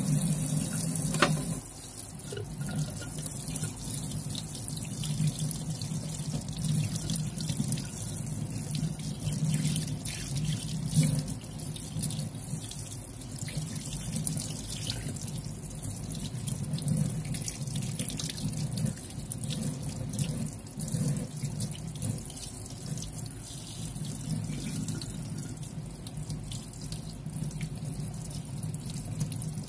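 Tap water running into a stainless steel sink and splashing as raw chicken thighs are rubbed and rinsed under the stream.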